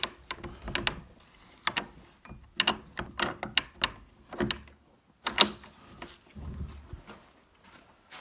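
A horse's hooves clacking and knocking irregularly on the stable floor as it walks out through the stable door, mixed with sharp clinks; the loudest knock comes about five seconds in.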